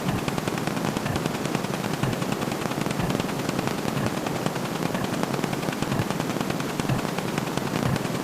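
A dense, unbroken rattle of very rapid short hits, like machine-gun fire, from counting sound effects played so quickly that they run together.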